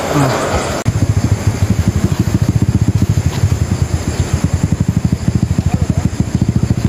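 A motor vehicle engine running close by, a steady, rapid low pulsing of about a dozen beats a second that starts abruptly about a second in.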